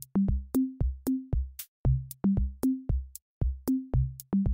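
Electronic background music: a quick, even drum-machine beat of short, low, plucked-sounding notes, each starting with a sharp click.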